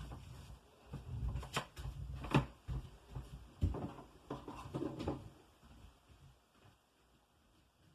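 A few scattered knocks and thumps with low rumbling, dying away about five seconds in.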